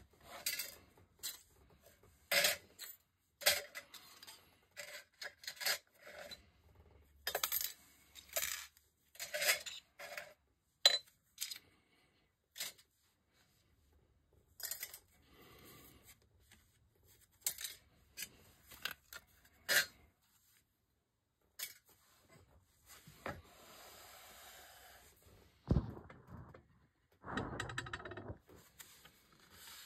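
Scrap sterling silver pieces, crumpled thin silver shells and weighted candlestick bases, clinking and clattering as they are handled and piled onto a plastic digital scale. Many sharp light clinks come first, then softer rubbing and a couple of duller bumps near the end.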